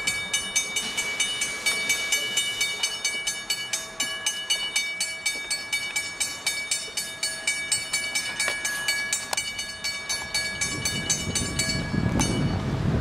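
Small two-foot-gauge steam train hauled by a Henschel tank engine running past slowly: a quick, even clicking beat, about four a second, with steady high-pitched squealing tones over it. It cuts off near the end and gives way to wind on the microphone.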